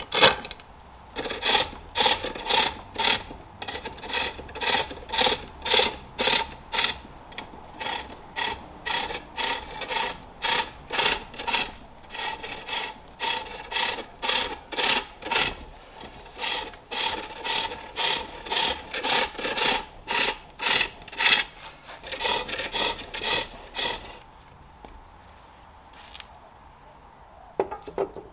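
Hand-forged hook tool cutting a wooden bowl blank on a pole lathe: a rhythmic rasping cut about twice a second, one with each down-stroke of the treadle as the lathe spins the work back and forth. The cutting stops a few seconds before the end.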